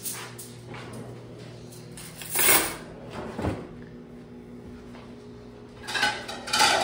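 A wooden kitchen drawer being opened and shut while dishes and cutlery are put away, with a sharp clatter about two and a half seconds in and more clattering near the end. A steady low hum runs underneath.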